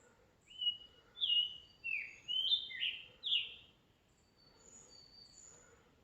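A songbird singing a quick phrase of about six short slurred notes, some falling and some rising, starting about half a second in. Near the end a fainter, higher and thinner song from another bird follows.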